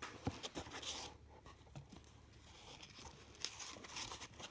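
Quiet rustling and scraping of a rifle scope being handled and lifted out of its cardboard box with foam inserts, with a few light knocks.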